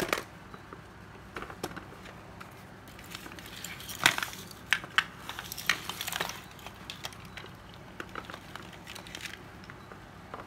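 A tangle of plastic wall-adapter chargers and their cords being gathered up and shifted on a tile floor: scattered plastic clatters and knocks, with a busier run of them around the middle.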